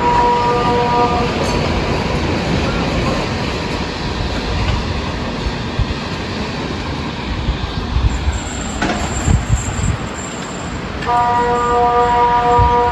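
A KTG-10 civil-defence siren's steady low tone cuts off about a second in and comes back on near the end: the on-off pattern of the Swiss water-alarm signal, long tones with pauses of about ten seconds. In the pause a loud, steady rushing noise carries on.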